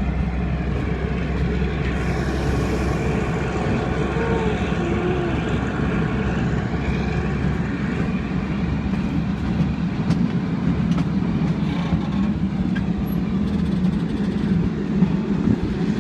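Steady running noise of a vehicle in motion, a continuous low rumble that does not let up.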